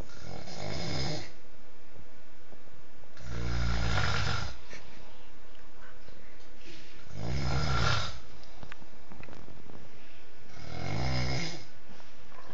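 A man snoring loudly: four long, deep snores, one about every three and a half seconds.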